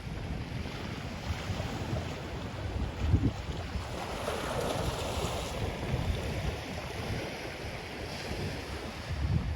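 Ocean waves washing onto a beach, with gusts of sea wind buffeting the microphone. A wave's wash swells up about four seconds in and fades away.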